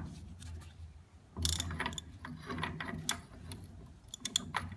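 Hand tools clicking and clinking on metal while working at the rear axle's pinion yoke: a handful of irregular sharp clicks, a few with a short metallic ring.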